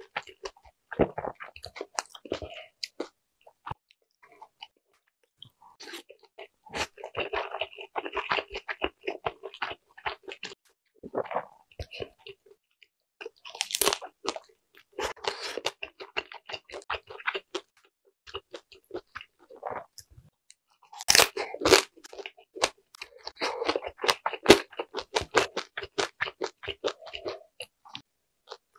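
Chewing and biting of dumplings, in bouts of a few seconds with short pauses. A sharper crisp bite into an air-fried dumpling comes about halfway through, and another stands out about three-quarters in.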